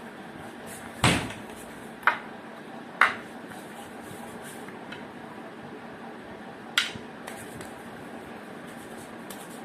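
Four sharp, short bursts over a steady background hiss: three about a second apart, the first the loudest with a brief tail, then one more a few seconds later.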